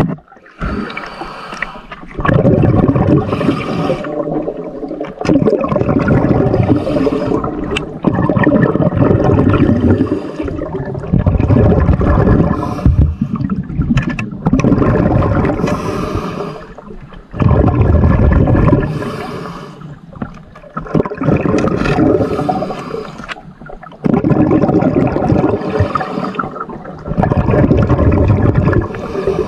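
Water gurgling and sloshing, heard muffled as if through a submerged camera, coming in loud surges every three or four seconds.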